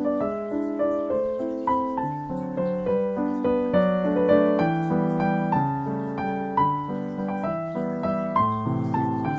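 Background piano music, single notes and chords struck at an even, unhurried pace, each ringing and fading.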